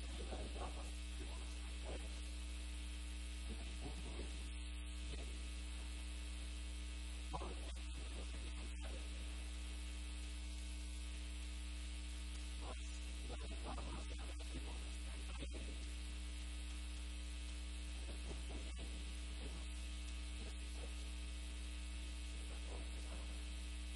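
Steady electrical mains hum, with faint short scratches of chalk writing on a chalkboard now and then.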